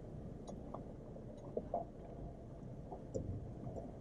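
Low steady rumble of a Jeep Wrangler JL idling, heard from inside the cabin, with a few faint small clicks and creaks.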